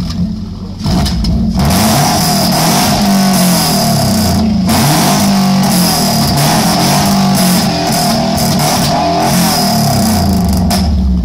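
Lada Priora's four-cylinder engine revved hard through a loud aftermarket exhaust. It is held at high revs with a couple of brief dips, starts about a second and a half in and drops away near the end.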